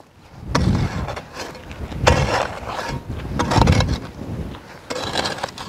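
A hoe scraping and dragging loose, dry earth into a pit, with the soil falling in over a buried parcel: three rough strokes about a second and a half apart, and a weaker one near the end.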